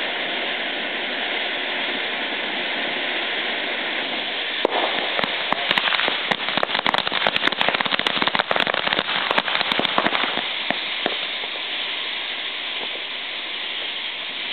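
A firework burning with a steady hiss. About four and a half seconds in it breaks into dense, rapid crackling for about five seconds, then settles back to hissing.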